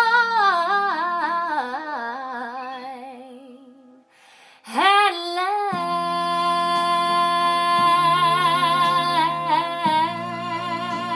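A woman sings a long note with wide vibrato that fades out about four seconds in. After a short break she starts another long, steady note, and soft sustained low accompaniment chords come in under it.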